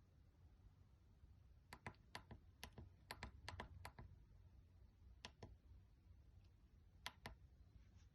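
Faint clicks of a small push-button Morse key on a breadboard telegraph, each press and release clicking, as a message is keyed in Morse code. A quick run of presses starts about two seconds in, then a single pair comes in the middle and another near the end.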